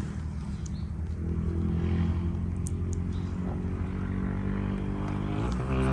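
Drone of a propeller aircraft's engine: a steady hum with several pitched tones, which slides up in pitch and grows louder near the end.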